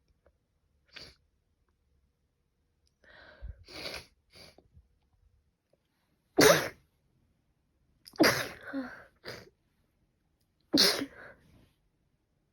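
A person sneezing in an allergic sneezing fit brought on by pollen allergy. Three loud sneezes about two seconds apart come in the second half, with fainter short sounds before them.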